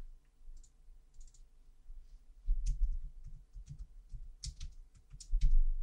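Scattered, irregular clicks of a computer mouse and keyboard, with a couple of louder dull knocks, one around halfway through and one near the end.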